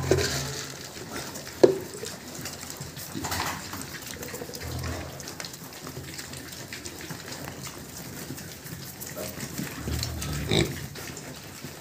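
A group of young pigs grunting and snuffling as they root and eat feed off the pen floor, with a few short, sharp squeals, one loud one about two seconds in and another near the end.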